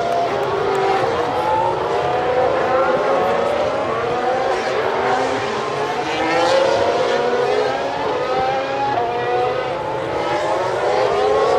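Several Formula 1 cars' 1.6-litre turbocharged V6 hybrid engines running at racing speed. Many engine notes overlap, each rising in pitch and dropping back again and again as the cars accelerate and shift gears.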